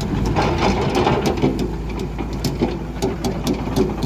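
Diesel engine of a Volvo EC210 excavator running steadily, with sharp ticks and knocks scattered through.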